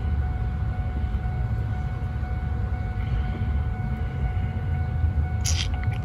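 A steady low rumble with a faint steady whine over it, and a brief rustle of paper about five and a half seconds in.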